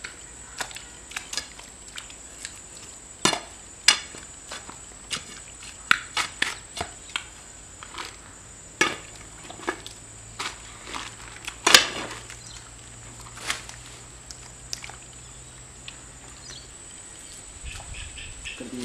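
A long pole being jabbed into thick pond mud, making irregular sharp wet smacks and knocks, about one a second. Near the end there is a softer squelching as hands scoop up the mud.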